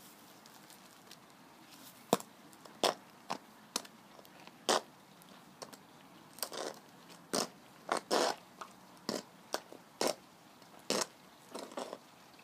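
Footsteps of high-heeled, lug-soled platform boots: heels clicking and soles scraping on a concrete path and squelching into the grass. It is an irregular series of a dozen or so steps, some sharp clicks and some longer scrapes, starting about two seconds in.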